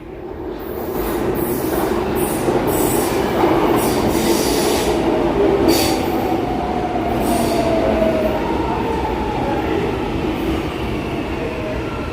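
São Paulo Metro Line 1 train running along the station platform, growing louder over the first two seconds. A whine slides in pitch over the train's steady rumble, with sharp clicks every second or so from the wheels.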